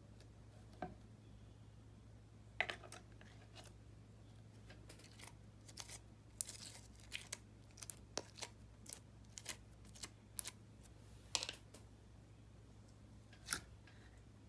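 Plastic slime tub being twisted open and its lid lifted off: scattered sharp clicks and short crinkles of plastic, bunched together in the middle of the stretch.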